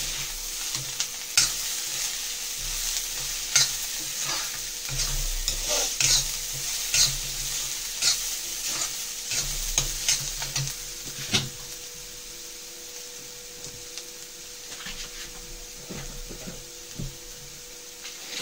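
Steel spatula stirring and scraping a chopped-onion and spice masala in an iron kadai while it fries with a steady sizzle, the masala being roasted (bhuna). The stirring strokes come thick and fast at first and thin out about twelve seconds in, leaving mostly the sizzle.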